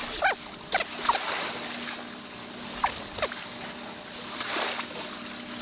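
Sea water washing over shore rocks, a steady rushing hiss, with three short rising chirps about a third of a second, three quarters of a second and three seconds in.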